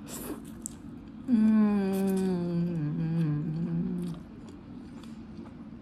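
A woman's long closed-mouth "mmm" hum of enjoyment while eating a mouthful of cup noodles. It starts about a second in, holds for about three seconds and sinks slowly in pitch. Just before it comes a short slurp of noodles.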